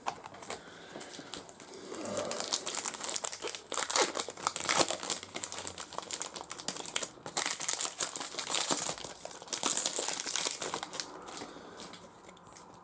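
Crinkling and tearing of a trading-card pack wrapper as it is torn open and handled: irregular, crackly rustling that grows louder about two seconds in and dies down near the end.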